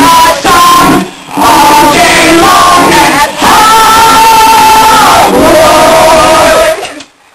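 Several voices singing loudly together in long held notes, overloading the microphone, breaking off abruptly near the end.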